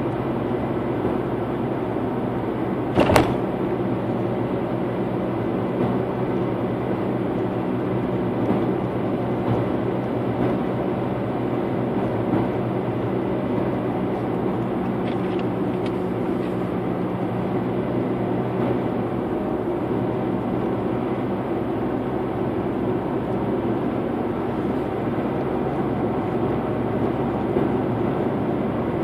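Steady road and engine noise heard from inside a moving car, with one sharp knock about three seconds in.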